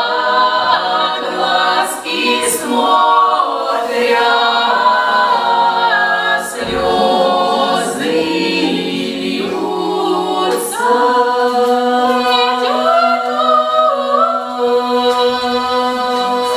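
A Russian folk choir singing unaccompanied in several-part harmony in the Voronezh folk style, ending on long held notes over the last few seconds.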